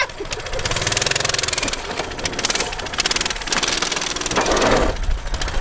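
Small engine running steadily with rapid, even firing pulses.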